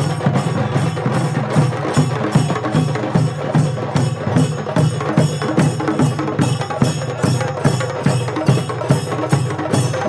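Festival percussion music: drums and clacking beats keeping a fast, steady rhythm.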